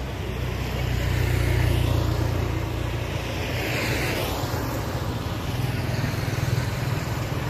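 Road traffic: motorbikes running along the road with a steady low rumble. One passes close about four seconds in, a hiss that swells and fades.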